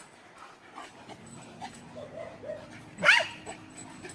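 A dog whining softly in short, wavering whimpers, with one louder, high yelp about three seconds in.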